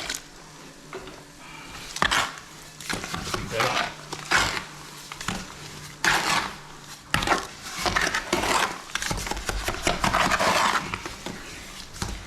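A stiff, dry mortar bedding mix being stirred and worked by hand, a tool scraping and grating through it in irregular strokes with occasional knocks. The mix is being brought from too dry to a fluffy consistency.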